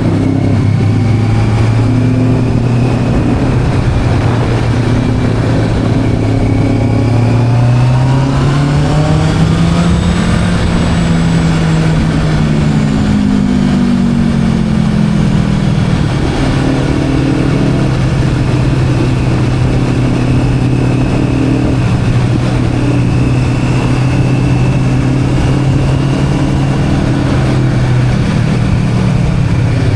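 Motorcycle engine running at steady revs while riding. About eight seconds in it pulls up to higher revs, then eases back down a few seconds later to a steady cruise.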